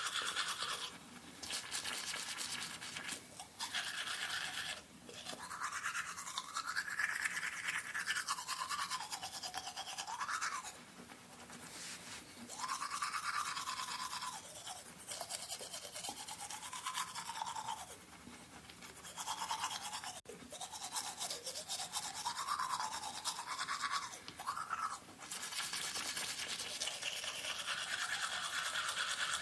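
A toothbrush scrubbing back and forth across teeth in rapid strokes, the pitch of the mouth shifting as the brush moves. The brushing stops briefly several times.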